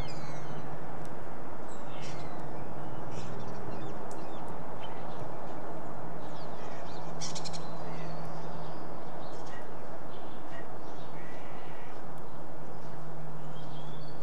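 Outdoor ambience: steady background noise with a low, even hum, and birds calling in short chirps scattered throughout.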